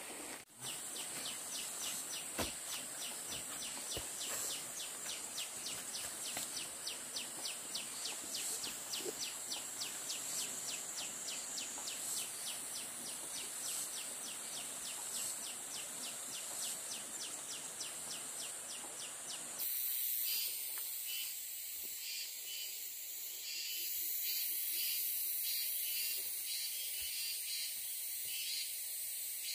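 Insects chirping outdoors: a steady high hiss with a fast, even pulsing chirp. About twenty seconds in, the sound cuts abruptly to a different, thinner insect chorus.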